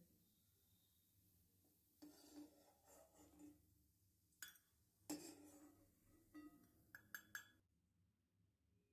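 Steel spoon scraping and clinking against a metal kadai as it stirs and scoops pieces of tamarind being dry-fried, in several short bouts that stop about a second before the end.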